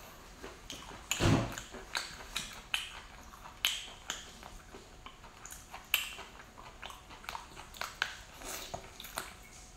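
Close-up eating sounds: chewing and biting on large sea snail meat, with many short sharp wet clicks and a louder bite about a second in.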